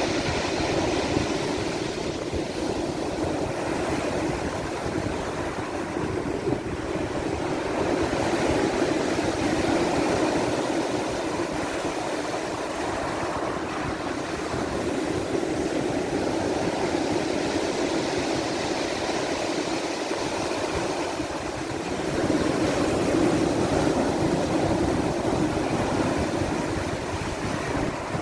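Black Sea waves washing in continuously, swelling louder about every dozen seconds as larger waves break.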